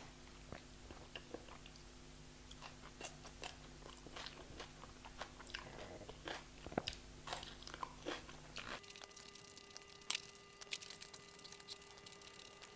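Faint close-miked eating sounds: a person chewing and crunching food, with scattered small wet mouth clicks and smacks.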